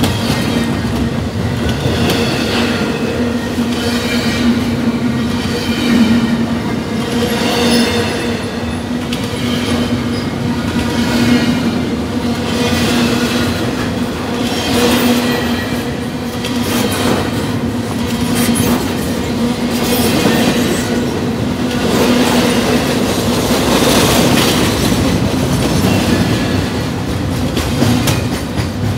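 Double-stack intermodal freight train rolling past at close range: a steady loud rumble of the well cars' wheels on the rails, broken by repeated clicks as the wheels pass over the track. A wavering high-pitched wheel squeal rises and falls at times.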